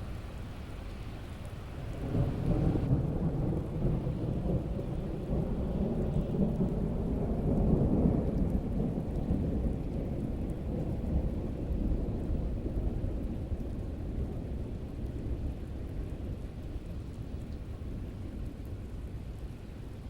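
Steady rain with a long, deep roll of thunder that swells about two seconds in, peaks near the middle and slowly dies away.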